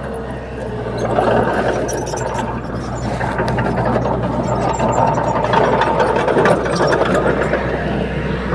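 Heavy diesel earthmoving machinery running steadily, with dense metallic clanking and rattling over the engine; it grows louder about a second in.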